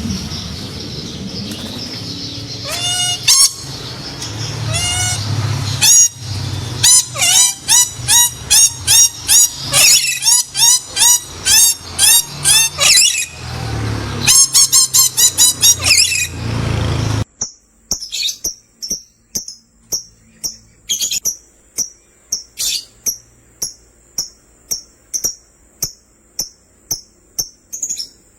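Lovebirds chirping: a dense, rapid flurry of chirps over a low hum, then, after an abrupt cut about two-thirds through, a run of sharp chirps roughly two a second over a thin steady high tone.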